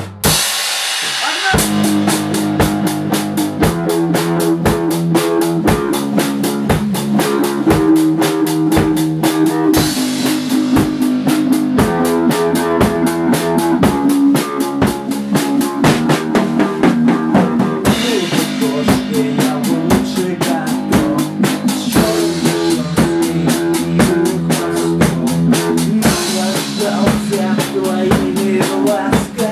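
Small amateur rock band playing live: a drum kit keeps a steady beat on kick and snare under electric bass guitar and sustained pitched chords. The band comes in after a brief break about a second in.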